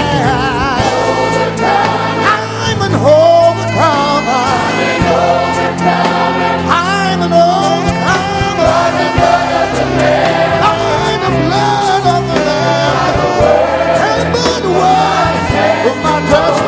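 Live gospel music: a choir and lead vocalist singing over a band with drums and bass, the voices held with vibrato.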